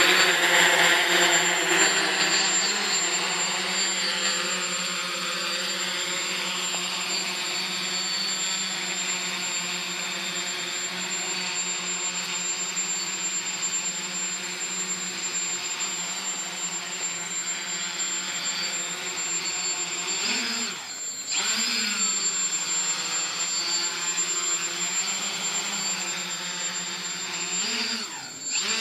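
Small quadcopter's electric motors and propellers buzzing as it hovers low, the pitch wavering with the throttle. It is loudest at the start, and the buzz briefly drops in pitch and level twice, about three-quarters of the way through and again near the end.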